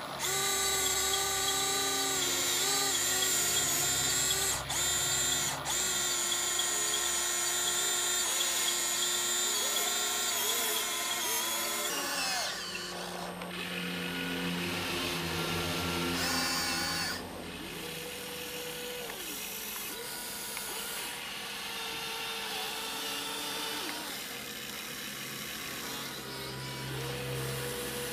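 Electric motors of a toy RC excavator whining as its arm and bucket move, the pitch shifting as motions start and stop. Louder for the first twelve seconds or so, then quieter.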